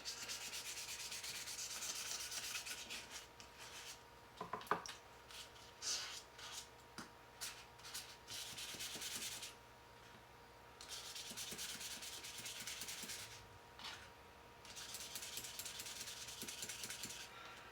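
Wet-and-dry sandpaper, 600 grit, being rubbed wet and with even pressure over the cellidor scale of a Victorinox Swiss Army knife, smoothing out the scratches left by 320 grit. It makes a quiet, fast scrubbing hiss with two brief breaks, and a few light knocks come early on.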